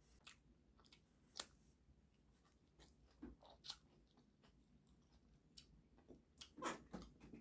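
Faint close-up eating mouth sounds: scattered wet clicks and smacks of chewing and of sucking food off the fingers, a little louder and closer together near the end.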